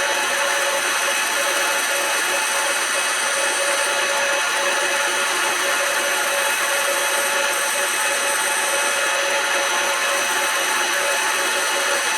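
Smart and Brown model L metal lathe running steadily while turning a piece of wood, a constant machine whine with several steady tones over an even noise.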